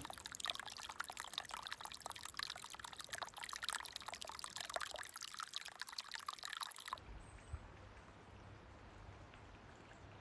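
Water trickling, with a dense bubbling, splashing sound for about seven seconds. It then cuts suddenly to a much quieter background with a low rumble.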